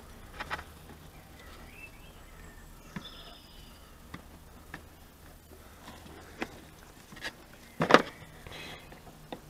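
Scattered light clicks and taps of a plastic washer jet and its hose being handled and pushed into the plastic scuttle panel, with a louder cluster of clicks about eight seconds in.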